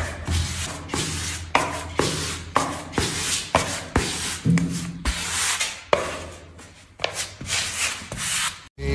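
Hand sanding block rasping back and forth across a wall tile's surface and edge, about two strokes a second.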